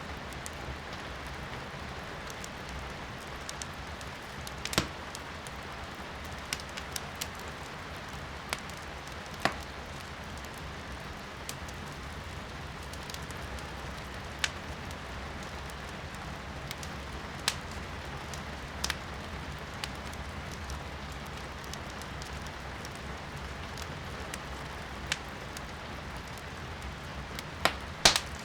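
Firewood burning in a fireplace, crackling with sharp irregular pops a second or a few apart, over steady rain heard from indoors. The two loudest pops come near the end.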